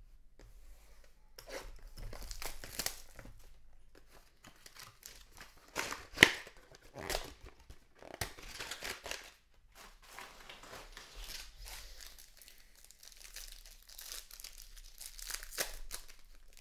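Trading-card packaging being torn open and crinkled by hand, in irregular rustling bursts, with one sharp snap about six seconds in.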